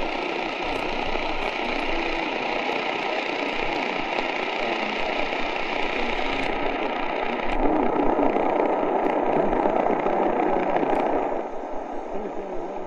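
RADIWOW R-108 portable radio's speaker hissing with medium-wave static on 700 kHz, with WLW Cincinnati barely coming through as a very faint distant daytime signal. The hiss turns duller about halfway through and grows quieter near the end.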